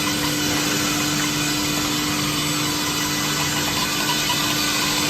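EPS wall sandwich panel production machine running steadily: a constant mechanical hum with one held tone over an even machinery noise.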